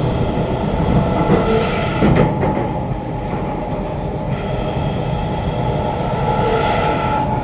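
Kawasaki Nippon Sharyo C751B metro train running on rails, heard from inside the carriage: steady wheel and rail rumble under a traction motor whine that holds a level pitch. The whine drops out about two seconds in, with a few rail clicks, and comes back about four seconds in.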